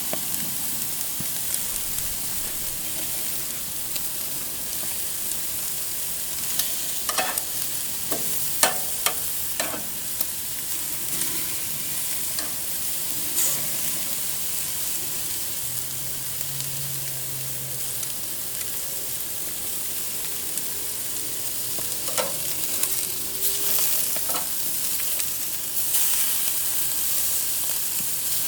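Food sizzling on a hot grill: a steady frying hiss with scattered crackles and pops of spitting fat, which come in clusters twice.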